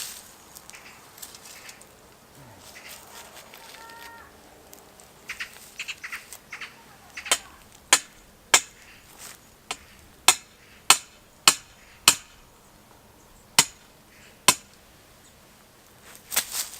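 Hammer blows on a boundary stake: about ten sharp strikes at a steady pace, roughly one every 0.6 s, starting about seven seconds in. A short bird call comes before them.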